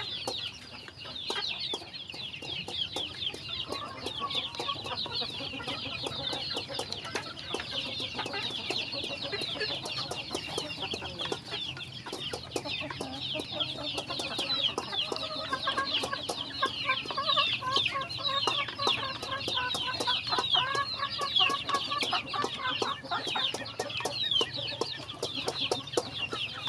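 A flock of young chickens peeping nonstop in many short, high, falling chirps while they feed, with lots of sharp pecking ticks. Lower clucks join in from about halfway.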